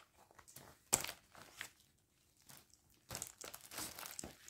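Plastic mesh zipper pouch being handled, crinkling in short scattered crackles, with a sharper click about a second in and a busier stretch of crinkling from about three seconds on.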